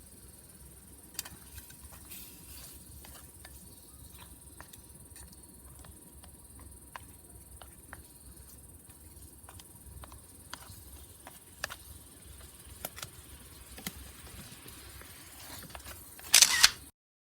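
Scattered light clicks and taps over a quiet background, like small objects being handled, with a short louder burst of noise near the end before the sound cuts off suddenly.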